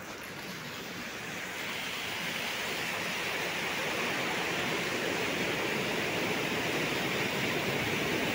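Dirty backwash water rising out of a rapid sand filter bed and spilling over the edges of the concrete wash-water troughs: a steady rushing splash that starts about a second in and grows louder as the flow builds.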